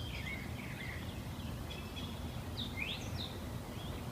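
Several wild birds chirping and calling in woodland: a scatter of short, high chirps with a few quick up-and-down calls, over a steady low background rumble.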